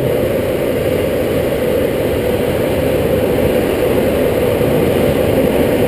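Steady low rush of airflow around a glider's canopy in flight, with no engine tone in it.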